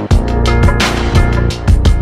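Background electronic music with a steady, fast drum beat and heavy bass.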